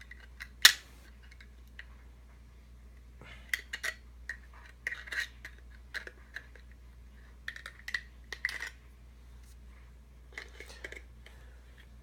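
A tin can being worked open by hand with metal tools: scattered metallic clicks and scraping, creaking sounds in short spells every second or two, with one sharp click about half a second in.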